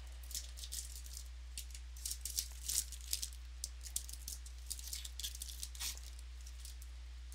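Trading cards being handled and flipped through: a run of quick, light rustles and snaps, busiest about two to three seconds in.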